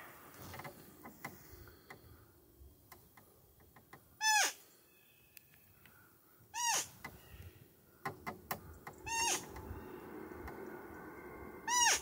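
A roe deer call (Blatter) blown four times, each a short, high, squeaky fiep note that rises then falls in pitch, imitating a doe to lure a roebuck during the rut. The calls come about every two and a half seconds, the first about four seconds in.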